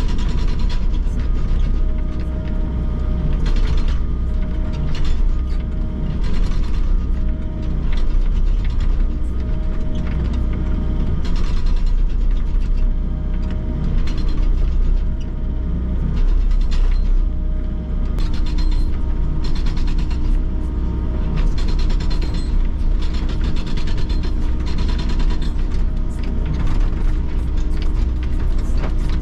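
Hydraulic breaker on a Volvo excavator hammering concrete piles, heard from inside the cab. Its rapid chisel blows come in repeated bursts over the steady drone of the excavator's engine and hydraulics.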